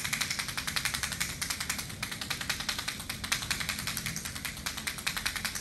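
Rapid, steady run of sharp clicks, many to the second, from a sound-trigger device used to 'tap' a horse with sound as a training cue; it starts abruptly.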